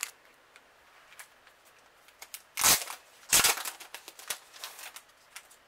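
Paper and plastic packaging being handled on a desk while the message card pack is fetched: quiet rustles and light ticks, with two short, louder rustling scrapes about two and a half and three and a half seconds in.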